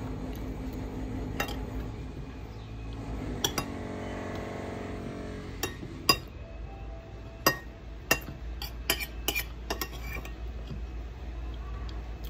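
Metal cutlery clinking and tapping against a plate during a meal, in scattered sharp clicks that come more often in the second half.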